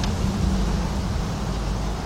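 Steady low mechanical hum and rumble from background machinery, with a faint hiss over it.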